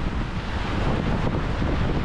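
Wind buffeting the microphone over the steady wash of small waves breaking on a rocky shore.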